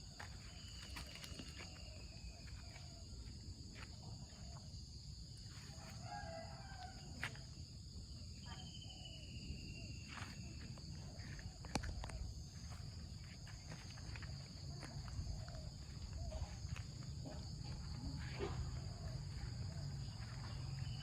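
Rural outdoor ambience: a steady high-pitched insect chorus, with a few drawn-out falling bird whistles over a low rumble.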